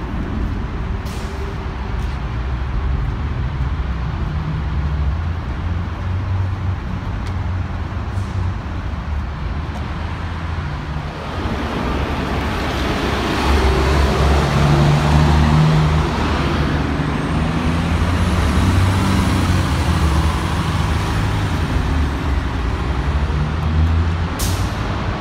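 MBTA transit buses running at a busway, with a steady low engine rumble that grows louder as a bus passes close about halfway through. A faint high whine rises and falls soon after.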